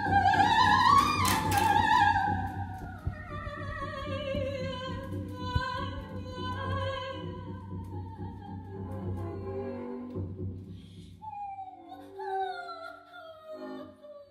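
A woman singing long notes with wide vibrato, sliding slowly down in pitch, over a bowed double bass holding a low note that stops about ten seconds in.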